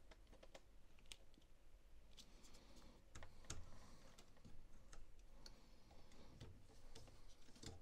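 Faint, scattered clicks and taps of the clear plastic Panda Knomi display case and its power cable being handled and fitted onto a 3D printer's toolhead.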